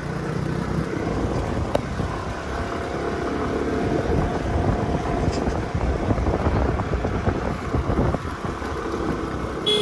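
Scooter engine running with wind and road rumble while riding over a rough road.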